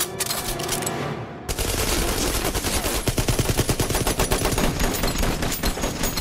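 Several submachine guns and pistols firing together in sustained automatic fire, dense and overlapping, starting about a second and a half in after a few sharp clicks.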